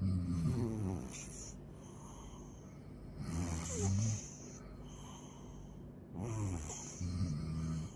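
A sleeping pet snoring: three slow, low snores about three seconds apart, with a hissing breath around each.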